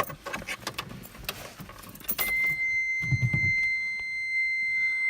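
Car keys jangling for about two seconds as the key goes toward the ignition of a 1993 Mitsubishi 3000GT SL. Then a steady, high-pitched electronic tone comes on and holds.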